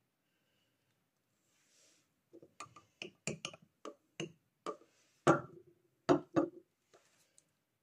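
A series of sharp knocks and clinks from hard objects being handled, about a dozen over five seconds, the loudest one a little past halfway with a brief ring after it.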